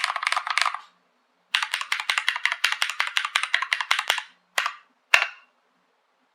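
Typing on a Novelkeys NK65 aluminium-case mechanical keyboard with lubed Durock L7 linear switches and PBT keycaps. A short run of fast keystrokes, a pause, a longer rapid run of about eight to ten strokes a second, then two separate strokes near the end, the last one heavier with a deeper thud.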